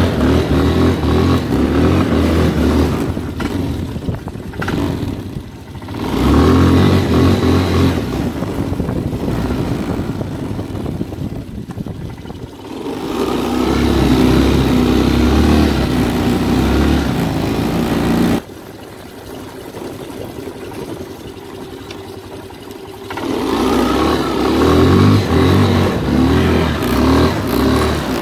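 Keeway 250 ATV engine running under way, heard from the handlebars, its note rising and falling as the throttle is opened and eased off. A little past two-thirds of the way in it drops suddenly to a much quieter running for about five seconds, then comes back loud.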